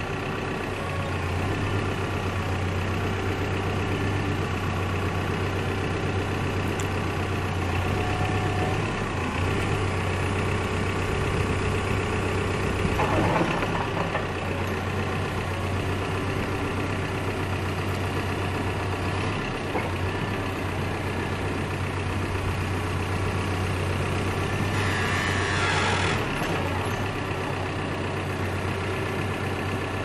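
Caterpillar 420F backhoe loader's diesel engine running steadily while the backhoe boom and bucket are worked hydraulically, part of cycling the hydraulic fluid through the system at startup. The noise swells briefly about halfway through and again a little before the end.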